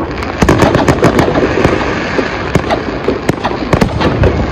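Aerial fireworks going off in quick, irregular succession: many sharp bangs, several a second, overlapping over a constant crackle.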